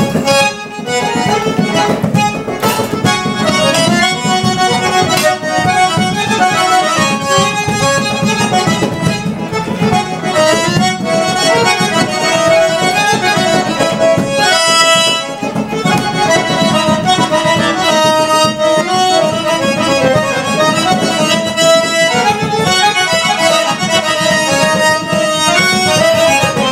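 A garmon, the Caucasian-style accordion, playing a tune: a running melody over held chords, with no break until it stops at the very end.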